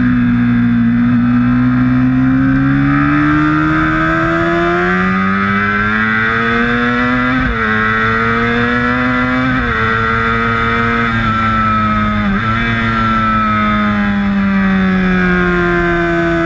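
Sport bike's engine heard on board at track speed over rushing wind. The revs climb steadily, break briefly three times in the middle as gears change, then fall away near the end as the throttle is rolled off.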